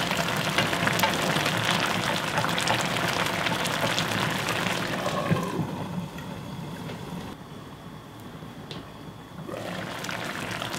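Spicy mackerel and radish braise bubbling and sizzling hard in a frying pan, its sauce reduced and nearly done, while sauce is spooned over the fish. About halfway through a glass lid goes on and the bubbling turns quieter and muffled, then it comes back up as the lid is lifted near the end.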